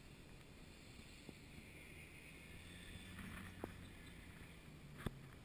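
Faint, steady low hum of an ATV engine running at low speed, with two light clicks in the second half.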